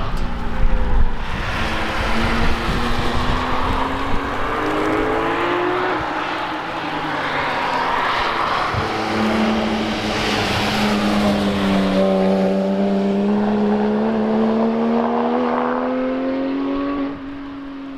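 Car engines driving past, their pitch gliding up and down with the revs over a steady rushing noise. The level drops suddenly near the end.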